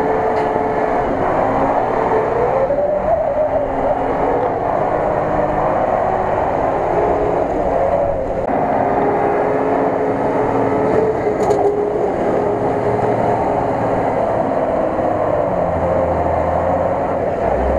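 Unimog off-road truck's engine working hard as it drives through deep muddy, icy water, with the wheels churning and splashing.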